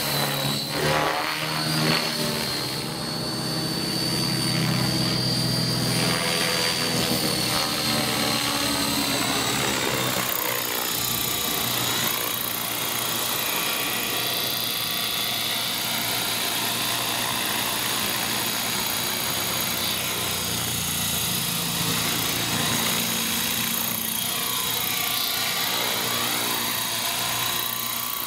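Radio-controlled model helicopter flying: a steady high whine from the motor and rotor head over the whir of the spinning blades, the pitch shifting as it manoeuvres and comes down low.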